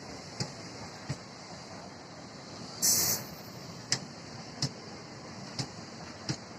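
Passing train wheels clacking over rail joints, sharp knocks coming in pairs over a low rumble. A short hissing burst comes about three seconds in.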